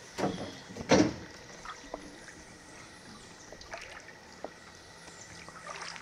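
Water splashing twice in quick succession in the first second or so, then faint water sounds with a few small knocks.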